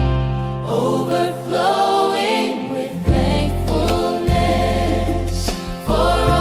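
Christian worship song with choir-like voices over a steady bass and accompaniment.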